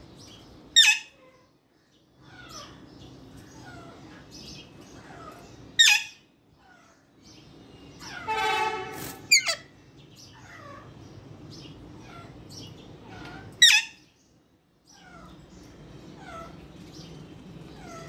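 Alexandrine parakeets calling: three loud, sharp screeches spread apart, and a longer harsh call about eight seconds in followed by two quick sharp ones. Soft, short falling chirps repeat throughout underneath.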